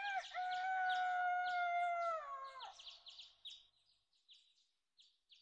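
A rooster crowing once: one long call, held about three seconds and dropping in pitch at the end, over small birds chirping.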